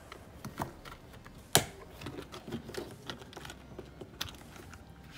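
Small plastic clicks and rattles as a car's A-pillar tweeter trim cover is pulled off by hand and handled, with one sharper click about a second and a half in.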